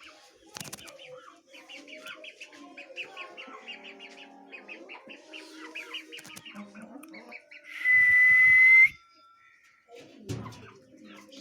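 Birds chirping in quick, repeated short calls, with lower calls beneath. About two-thirds through, a loud, shrill, steady whistle lasts about a second.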